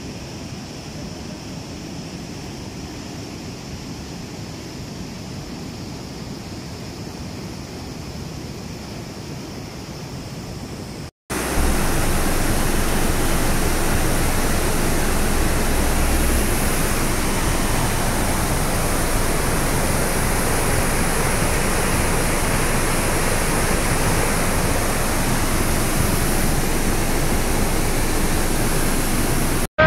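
Swollen, muddy river in flood rushing past: a steady noise of churning water. About eleven seconds in there is a brief break, and the rushing comes back much louder.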